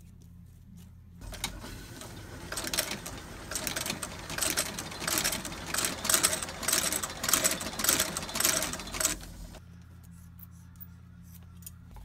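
A heavy shoe-repair stitching machine runs while stitching the sole of a leather boot, starting about a second in and stopping just before ten seconds, its sound swelling and fading in repeated surges. Before and after it there are faint scratches of a glue brush.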